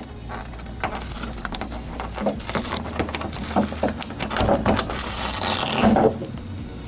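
Adhesive decal being peeled by hand off a painted motorcycle fairing: an irregular crackling rip as the glue lets go, getting louder and ending in a quick, loud pull about six seconds in.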